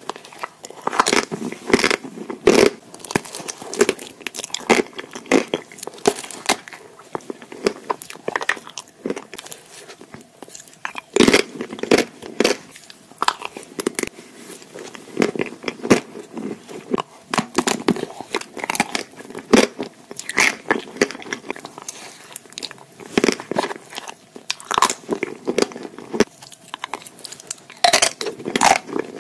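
Close-up bites and chewing of a chocolate-shelled ice cream bar on a stick: the hard chocolate coating cracks in sharp, irregular snaps, with softer chewing in between.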